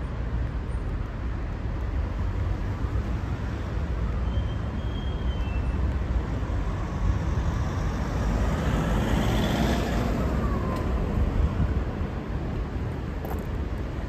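Road traffic with a steady low rumble; a vehicle passes close by about eight seconds in, rising and then falling away.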